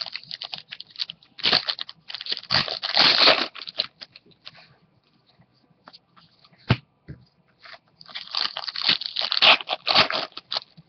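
Foil trading-card pack wrappers being torn open and crumpled, in two crackling stretches with scattered clicks and rustles of cards being handled between them.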